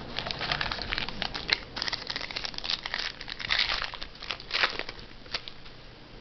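Trading card pack wrapper crinkling and tearing as it is opened by hand: a dense run of crackles that thins out near the end.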